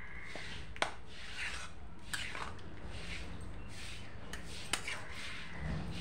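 Metal spatula scraping and stirring through potato curry in a steel kadhai, with two sharp clinks of the spatula against the pan.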